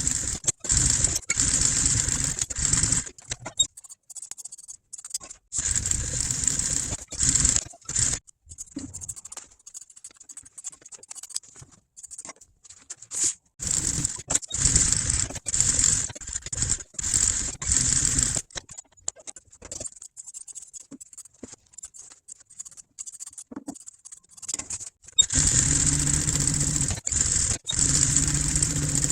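Sewing machine stitching vinyl boat-seat upholstery, running in runs of a few seconds that stop and start several times, with small clicks of handling in the pauses.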